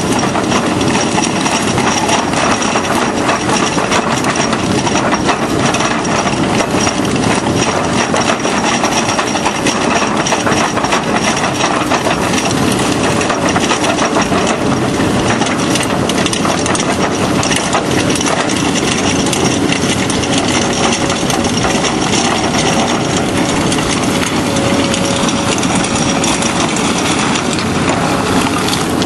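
Excavator-mounted hydraulic drum cutter grinding into weathered rock: a steady, loud grinding with a dense crackle of the cutter picks on stone, over the excavator's running engine.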